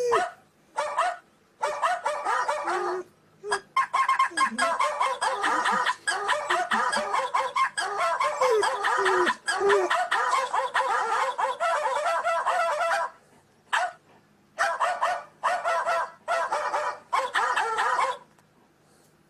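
A chicken-and-rooster ringtone playing through a phone's speaker: clucking in short bursts at first, then continuously, then stopping abruptly and returning as four short bursts before cutting off. A dog's voice is mixed in.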